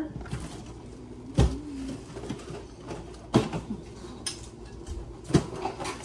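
A metal spoon clinking against a glass mug while coffee is stirred: three sharp clinks about two seconds apart, with a faint low hum after the first.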